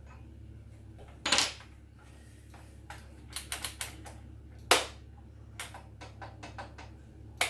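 Irregular sharp metal clicks and knocks as the saw's blade bolt, spindle lock and Allen wrench are handled. There is a loud knock about a second in, a quick run of clicks around the middle, a sharper knock just after, then scattered lighter clicks.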